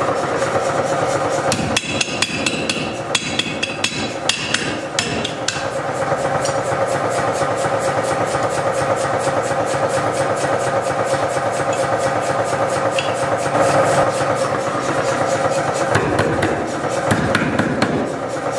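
Mechanical power hammer striking hot steel of a knife blank on its anvil, several blows a second in a fast, steady rhythm, moving the material before the blade is shaped.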